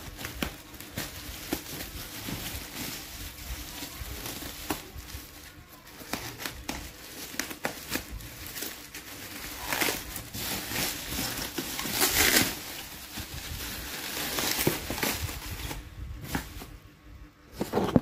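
Plastic bubble-wrap packaging crinkling and rustling as it is handled and torn open, in irregular crackles with louder stretches in the second half.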